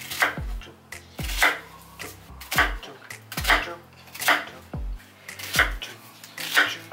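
Chef's knife chopping an onion on a plastic cutting board, one sharp chop about every second.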